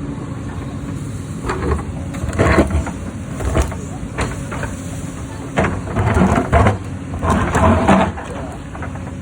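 Hyundai excavator's diesel engine running steadily while its bucket works stone, with a run of irregular loud knocks, crunching and scraping of rock through the middle.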